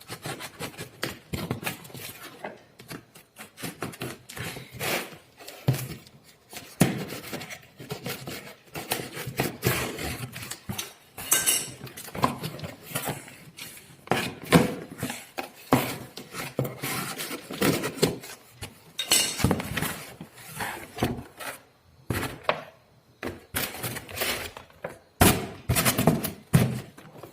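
Unpacking a boxed speaker by hand: irregular knocks, clicks and clatter of the box and its packing being handled.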